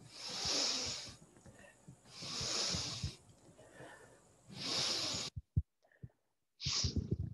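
A man's deep breaths heard close on a clip-on microphone, paced to a qigong exercise: three long, airy breaths about two seconds apart, then a shorter one near the end.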